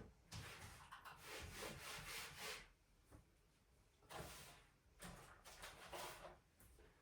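Faint rubbing and swishing of things being handled during tidying by hand: three soft passages with short quiet gaps between them.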